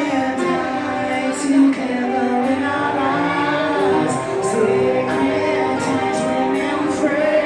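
Live rock band with a male lead singer holding long sung notes and occasional cymbal hits, heard from among the audience.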